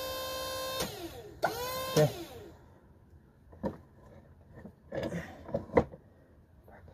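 A small electric motor whines steadily as something is raised, cuts off under a second in, then gives two short bursts that wind down in pitch. After that come a few light metal clanks and knocks.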